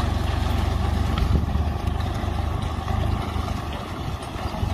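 Mini tractor's engine running steadily under load as it pulls a mulch-film laying machine, a continuous low rumble that eases slightly near the end.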